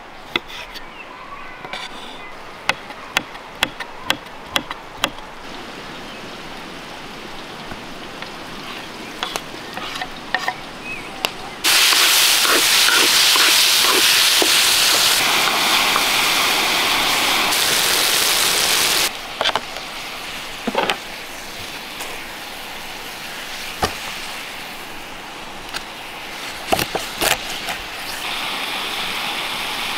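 A kitchen knife slicing cherry tomatoes, tapping sharply on a wooden cutting board. About 12 seconds in, a loud sizzle of tomatoes and onion frying in oil in a cauldron, stirred with a wooden spatula, lasting about seven seconds. Then a knife cutting through a large fish on the wooden board, with occasional knocks.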